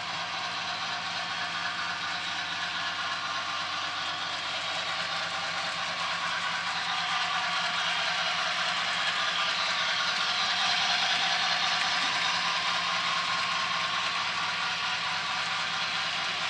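HO scale model train (a Bachmann Spectrum Boston & Maine 2-6-0 steam locomotive with freight cars) running on the layout track: a steady whir and rattle of the motor and wheels on the rails, growing louder toward the middle as the train comes closer, then easing slightly.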